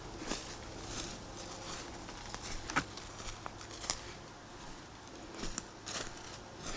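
Irregular crunching, crackling footsteps, with a few sharper snaps among them.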